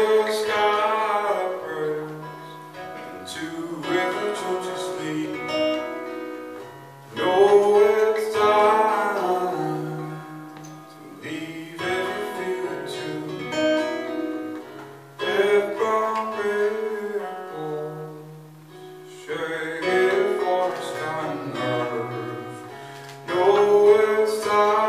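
Live song: a male singer with a strummed acoustic guitar, the vocal phrases each starting loud and fading over several seconds.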